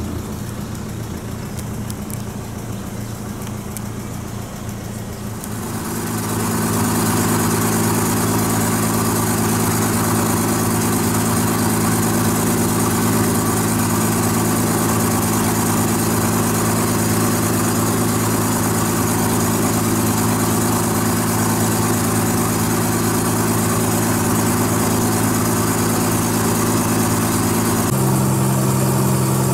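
Motorboat engine running steadily, heard from on board. It is quieter for the first few seconds, grows louder about six seconds in, and its tone shifts near the end.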